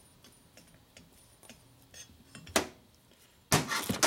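Metal-on-metal clinks and clanks as a Sportster valve spring compressor is worked off an ironhead cylinder head: light clicks, one sharp knock about two and a half seconds in, then a louder ringing clatter near the end as the compressor comes free.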